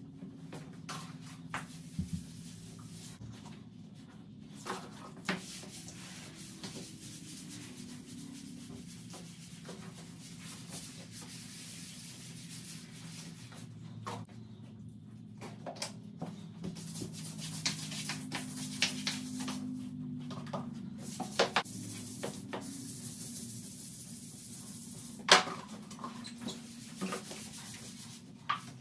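Steady rubbing of a gloved hand scrubbing a shower wall, with scattered knocks and clicks against the wall and fixtures. One sharp knock near the end is the loudest.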